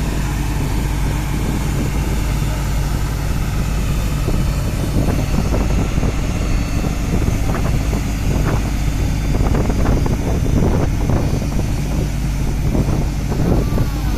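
Komatsu PC300 excavator's diesel engine running steadily, with irregular short rattles and knocks coming in from about five seconds in.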